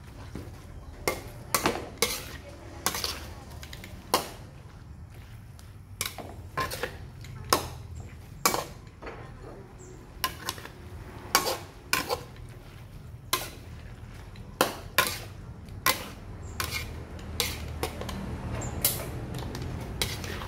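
Metal spatula clanking and scraping against a steel wok while stir-frying squid and chilies, in irregular knocks about one or two a second over a low steady hum.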